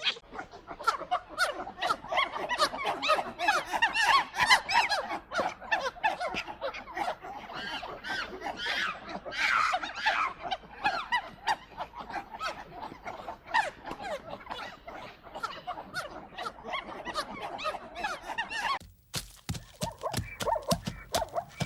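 A chorus of many animals calling at once: short, overlapping squeaky yelps and barks that rise and fall in pitch. Near the end it breaks off for a moment and a different recording of calls begins.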